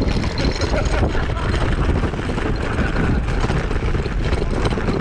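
Loud, steady rumbling and rattling on a bike-mounted camera's microphone as a loaded touring bicycle is wheeled over paving stones. Voices of people on a busy pedestrian street sound underneath.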